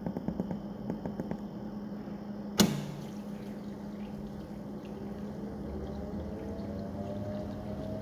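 Industrial ultrasonic humidifier running with a steady low hum. A few faint ticks from the humidity controller's buttons, then a single sharp click about two and a half seconds in. From about halfway on, a faint tone slowly rises in pitch.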